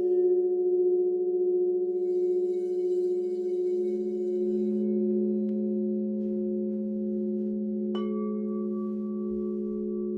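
Singing bowls ringing in sustained, overlapping tones with a slow wobbling beat. About eight seconds in, a bowl is struck, adding a new, higher ringing tone.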